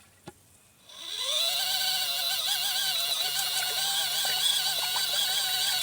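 Small 12 V motor of a portable foldable washing machine stopped, a single click, then the motor starting up again with a rising whine that settles into a steady, slightly wavering hum as the drum turns the wash. This is the pause and restart as the machine reverses direction in its back-and-forth wash cycle.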